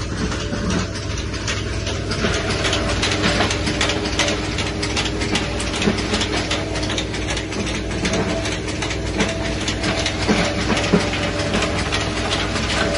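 Belt-driven soil grinding machine running under load: a steady motor and pulley hum under a dense, continuous rattle and clatter as fed soil is crushed.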